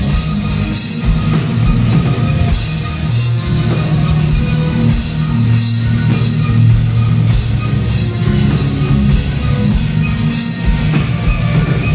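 A symphonic metal band with a string orchestra playing live: distorted guitars, a drum kit and sustained low notes in a loud, dense mix.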